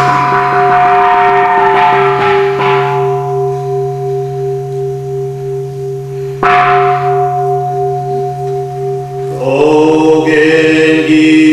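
A bell struck at the start and again about six and a half seconds in, each strike ringing on and slowly dying away. Near the end a group of voices begins chanting in held notes.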